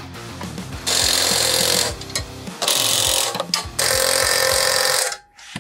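Cordless power tool run in three bursts of about a second each, tightening the 5/16-inch engine-mount bolts on the go-kart's engine plate. Background guitar music plays underneath.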